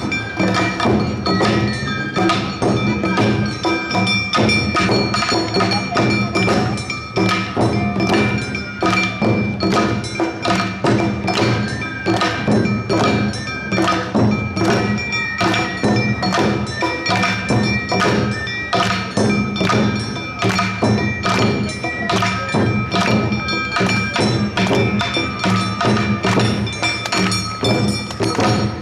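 Awa Odori narimono band playing the two-beat dance rhythm, with drum and bell-gong strikes about two a second over sustained high tones.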